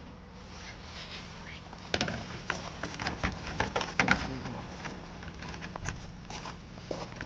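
Hard plastic clicks, knocks and rattles of a Volvo front grille being pushed and worked into place on a car's nose, in an irregular run of taps a couple of seconds in that dies away near the end.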